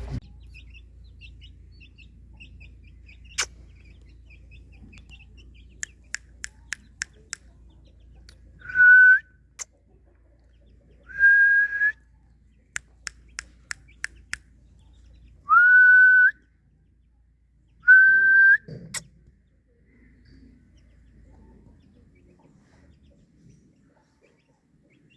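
Four loud one-note whistles, each about a second long and rising slightly at the start, with quick runs of sharp clicks between them. Faint high chirping comes in the first few seconds, and it goes quiet after the last whistle.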